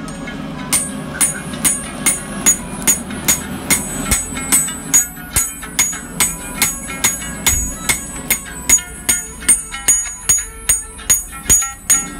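Hand hammer striking a hot mandau blade on a steel anvil block: a steady run of ringing metal blows, about two to three a second, starting about a second in.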